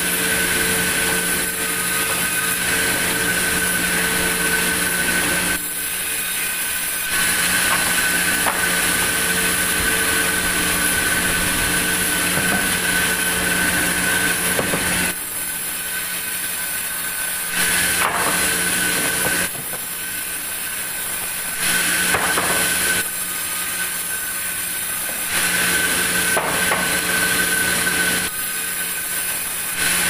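Sawmill band saw running with a steady whine, cutting lengthwise through large wooden planks in repeated passes, with several short, quieter spells between cuts.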